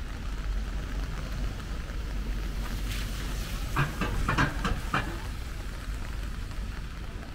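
Downtown street ambience in light rain: a steady low rumble of traffic under the hiss of rain on wet pavement. A brief cluster of sharper sounds comes about four seconds in.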